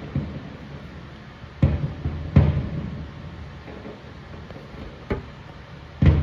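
Aerial fireworks shells bursting: four booms, each trailed by a low rumble. The loudest come about two and a half seconds in and just before the end.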